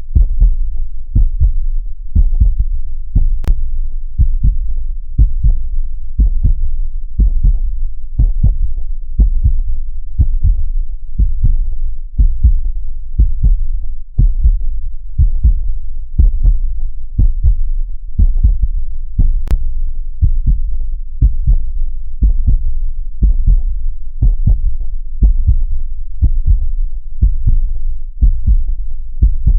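Womb-like heartbeat sound: a steady, even rhythm of deep, low thuds.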